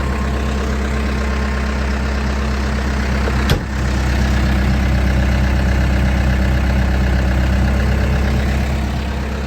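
Case 580 Super M Series 2 backhoe loader's 95-horsepower turbo diesel engine running steadily at idle. A single sharp click comes about three and a half seconds in, after which the engine is a little louder until near the end.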